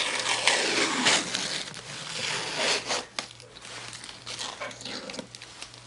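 Thin clear plastic film being peeled off a laptop's palm rest, crinkling and tearing, loudest in the first three seconds and then fainter. A low steady hum runs underneath.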